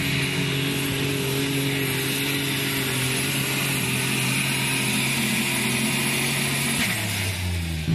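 Unlimited super stock pulling tractor's engine running flat out at a steady high pitch under load, with a hiss on top; about seven seconds in the pitch drops as the engine comes off full power at the end of the pull.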